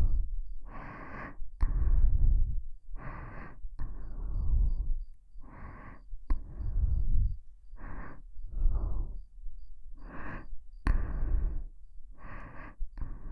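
Close breathing into a KU100 binaural dummy-head microphone: steady breaths in and out, about six in all, one every two seconds or so, with the air hitting the microphone as a low rumble. A few small mouth clicks fall between breaths.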